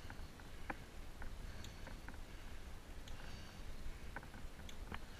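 Bicycles climbing a paved path: a low steady rumble of riding noise with scattered light clicks and rattles from the bikes.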